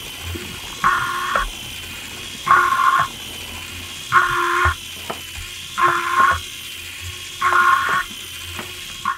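Lego Technic walker robot's electric motor and gear train running steadily, with a half-second pitched burst from the leg mechanism about every 1.7 seconds, five times, as the legs cycle.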